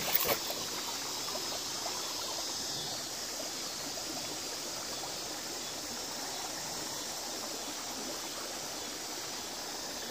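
Steady rush of a flowing creek, with a brief handling knock and rattle in the first half-second as the plastic gold pan is moved.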